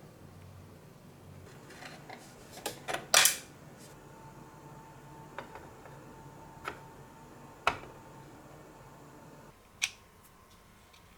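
Light clicks and taps of small hard objects: a quick cluster of several about two to three seconds in, the loudest of them just past three seconds, then single clicks spaced a second or so apart, with a faint steady tone under the middle ones.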